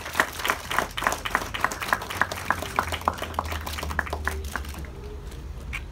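Small group applauding, single claps standing out, dying away about five seconds in.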